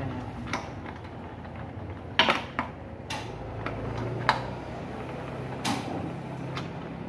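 Engine parts being handled and fitted by hand into an open cast-aluminium motocarro engine crankcase: a few sharp metal clinks and knocks, the loudest cluster about two seconds in, over a steady low hum.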